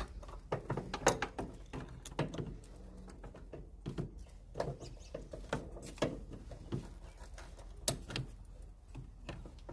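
A 13mm socket and ratchet being fitted and worked on a hood-latch bolt: scattered metallic clicks and knocks, irregularly spaced, a few every second, as the bolt is run in.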